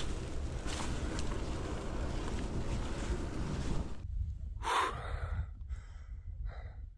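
Wind buffeting the microphone while riding, cutting off abruptly about four seconds in, followed by a brief breathy sound and a few faint scattered sounds.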